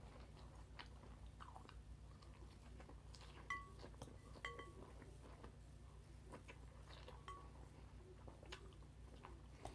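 Faint close-up chewing of a leafy green and avocado salad, with soft crunching clicks. A metal fork clinks against the glass bowl with short ringing pings, the clearest about three and a half and four and a half seconds in.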